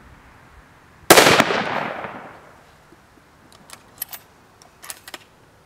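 A single shot from a .308 Winchester Savage 10 bolt-action rifle about a second in, its report ringing out and fading over about a second. A few seconds later, a handful of short metallic clicks as the bolt is worked.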